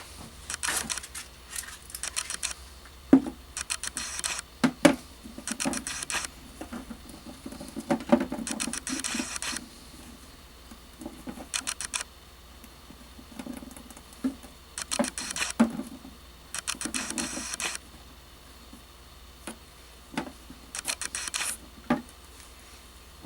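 Support material being picked and scraped off a wood-filament 3D print: irregular bursts of scratching and crackling with a few sharp snaps.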